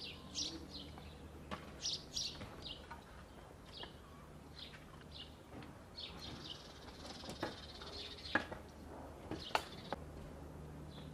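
Small birds chirping in short, repeated high notes, with a few sharp knocks of a hatchet splitting kindling on a wooden chopping block, the loudest two near the end.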